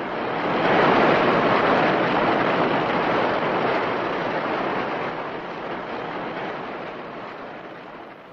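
A monster-film sound effect: a long rushing noise, like wind or surf, that swells to its loudest about a second in and then slowly fades away.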